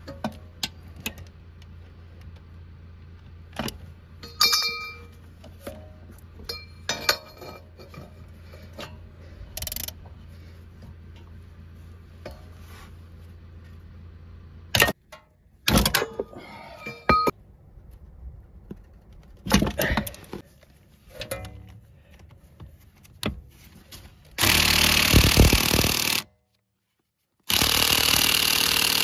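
Metal hand tools clinking and clicking against the rear axle bolts, with wrench extensions knocking about. Near the end an impact wrench hammers loudly in two bursts, too weak to break the axle bolts loose, its power going into rattling the wrench extensions.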